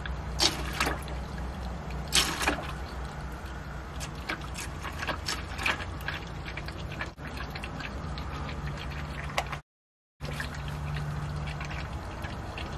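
Used engine oil pouring in a stream from the 6.7 Cummins oil pan drain hole into a sample bottle held in the stream, with several brief splashes over a steady low hum. This is a used-oil sample being caught mid-drain.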